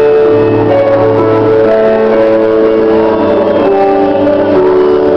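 Live worship band music through PA speakers: slow, sustained keyboard chords, played loud.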